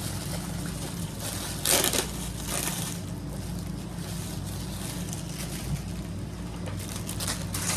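A shipping package being torn open and its packaging crinkled, with one loud rip about two seconds in and smaller rustling bursts after it.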